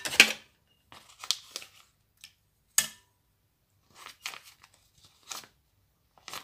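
Butter wrapper crinkling and rustling, loudest right at the start, then a string of short scrapes and rustles as a metal spoon works the butter off the wrapper into a bowl.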